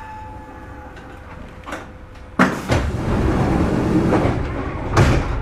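Pneumatic sliding passenger doors of a Kintetsu 2430-series commuter car working at a station stop: a sudden rush of air about halfway through, ending in a loud thump as the doors reach the end of their travel. A low steady rumble from the stopped car runs underneath.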